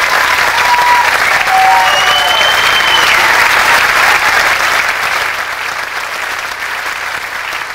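Theatre audience applauding steadily, with a brief whistle over the clapping about two seconds in; the applause eases off in the second half.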